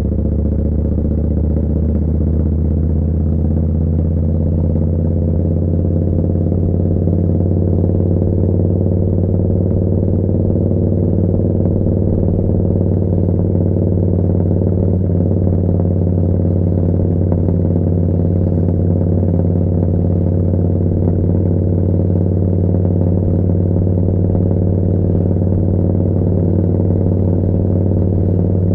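Yamaha Bolt's air-cooled V-twin running through a Vance & Hines slip-on exhaust, a steady note whose engine speed rises slightly over the first several seconds and then holds even.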